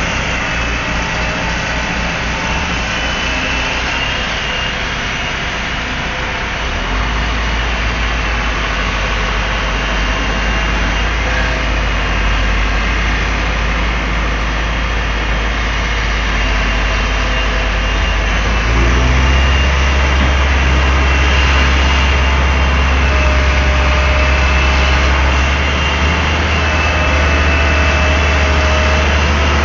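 Daewoo Solar 280 LC III tracked excavator's diesel engine running steadily. It picks up about seven seconds in and again, more strongly, about nineteen seconds in.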